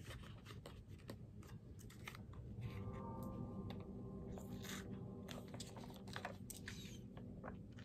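Aluminium foil wrapped around a sandwich crinkling in quick, irregular clicks as it is handled and peeled back for eating.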